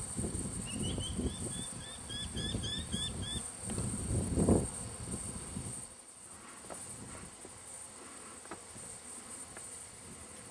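A steady, high insect trill throughout, with a quick run of repeated bird chirps over the first few seconds. Rustling and handling noise, with a bump about four and a half seconds in, then quieter.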